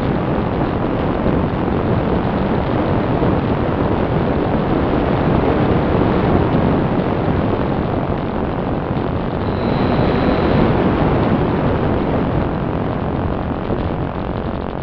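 Steady rushing wind noise from air streaming past the onboard camera of a small foam FPV plane in flight. It swells slightly about ten seconds in.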